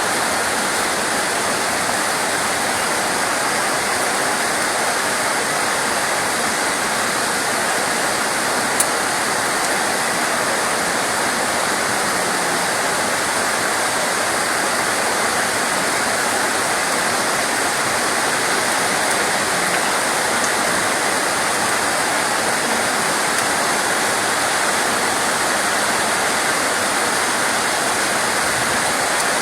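Steady heavy rain, an even rushing hiss with no let-up, with one brief click about nine seconds in.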